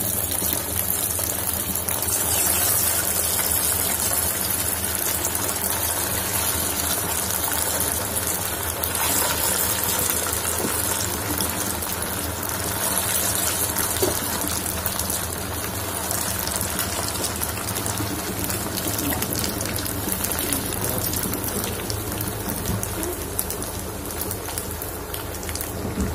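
Poha and spinach cutlets deep-frying in hot oil in a kadhai: steady sizzling and bubbling of the oil.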